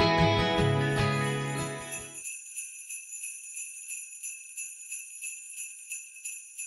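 Acoustic guitar music that cuts off about two seconds in, leaving sleigh bells jingling alone in a steady rhythm of a few shakes a second.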